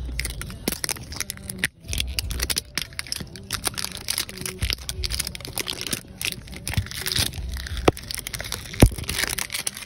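Thin plastic wrapping crinkling and crackling as it is peeled by hand off an LOL Surprise ball, with two sharper clicks near the end.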